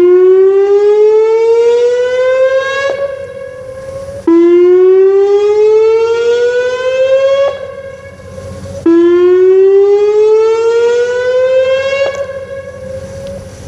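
Whelen WPS-2909 electronic outdoor warning siren sounding loudly in a test. It gives three rising glides, each starting suddenly and climbing in pitch for about three seconds before fading, over a steadier held tone.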